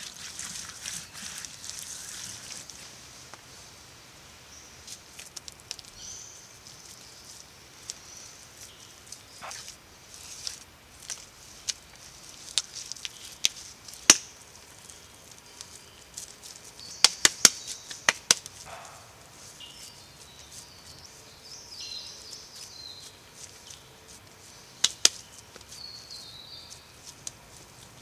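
Hands pressing and slapping wet mud into a mud wall, with forest birds and insects calling in the background. Sharp clicks come singly and in a quick cluster a little past the middle, and twice more near the end; these are the loudest sounds.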